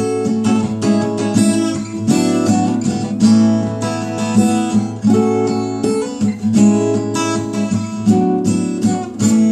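Acoustic guitar strummed in chords, an instrumental passage between sung verses.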